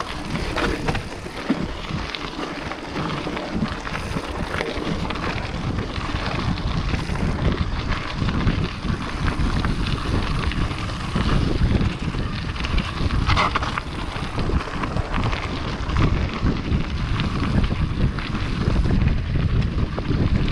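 Wind noise on the microphone over a mountain bike riding fast down a rough dirt and gravel trail: tyres crunching on the surface and the bike rattling over bumps, with many small clicks throughout.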